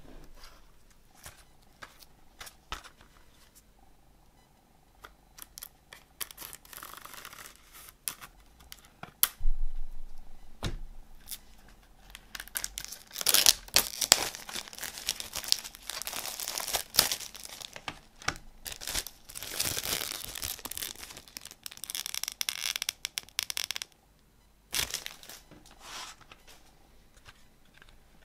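Clear plastic shrink-wrap being slit and torn off a CD case, with loud crinkling and crackling of the cellophane in the middle of the stretch. Scattered clicks and taps of the case and knife being handled come before and after it.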